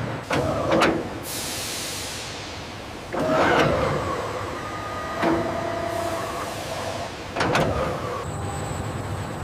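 Steady industrial background noise with four sharp metallic clanks, each ringing briefly. They come about every two seconds, typical of heavy steel parts being handled and fitted in a factory.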